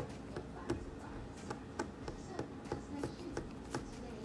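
Soft, irregular clicks and taps close to a phone's microphone, about two or three a second, over a faint low murmur.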